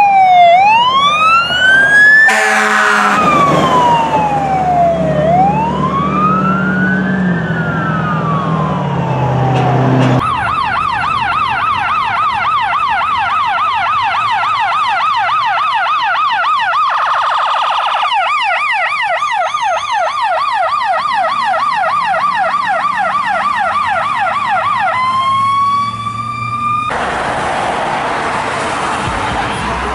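Fire truck electronic sirens. First a slow wail rising and falling, with a short loud blast a couple of seconds in and a truck engine under it. Then a fast yelp of quick repeated rises and falls, briefly faster still partway through, and near the end a rising wail and a noisy blast.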